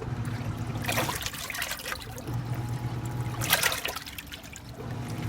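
Water running and splashing into a washing machine tub over a steady low hum, with louder splashes about a second in and again around three and a half seconds in.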